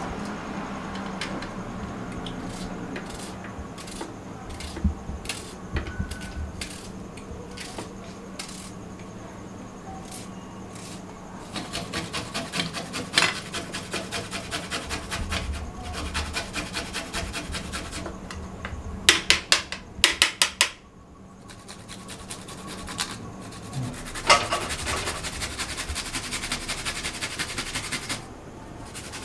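Garlic being grated on a small handheld metal grater over a steel plate: quick rasping strokes, several a second, in runs. Before the grating starts there are scattered clicks of a knife working garlic cloves on the plate.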